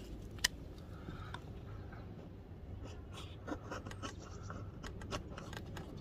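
Mikov Praktik pocket knife blade shaving curls off a wooden stick, a run of short, irregular scraping strokes, with one sharp tick about half a second in.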